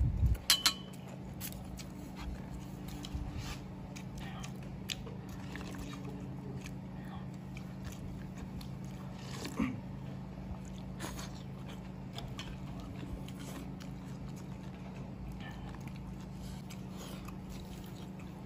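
Eating sounds: slurping and chewing of thin cornmeal porridge (hutu) from a stainless-steel bowl, with light clicks of chopsticks against the bowl, sharpest about half a second in. A steady low hum runs underneath.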